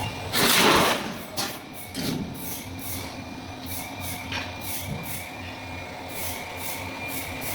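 Automatic sheet-metal duct production line running, with a steady hum and thin high whine. A loud burst of hiss comes about half a second in, and a few clunks follow.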